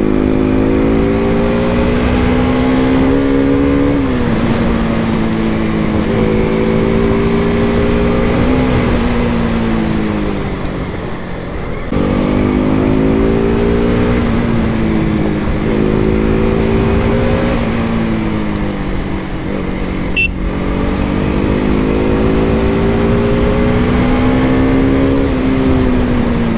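KTM RC 200's single-cylinder engine running under way, heard from the rider's seat. Its pitch climbs steadily as the bike accelerates and drops back several times, sharply at gear changes and more slowly as it eases off.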